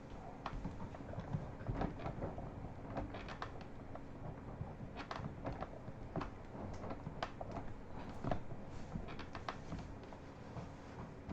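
Irregular clicking and knocking, a few to several a second, over a low, unsteady rumble.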